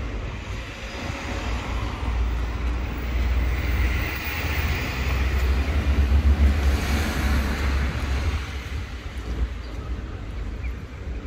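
Road traffic: a vehicle passing, its noise swelling to its loudest about six to seven seconds in and then fading, over a steady low rumble.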